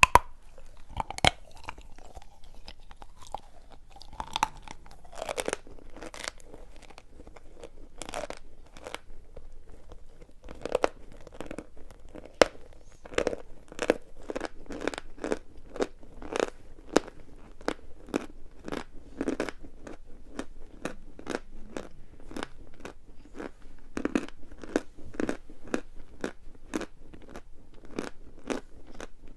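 Pieces of sawn chalk being bitten and chewed close to the microphone, with sharp dry crunches about twice a second.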